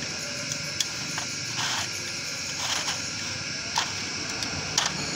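Screwdriver working against a CD-70 motorcycle's steel clutch basket and plates, giving several sharp metal clicks and a couple of short scrapes over a steady background noise.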